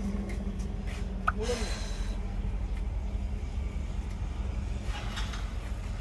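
Steady low hum and rumble of a car idling, heard from inside the cabin, with a brief faint sound about a second and a half in.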